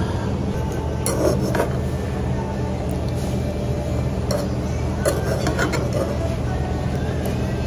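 Chopsticks and tableware clinking and knocking lightly against a ceramic bowl and glass on a table, a few scattered clicks, over a steady low hum.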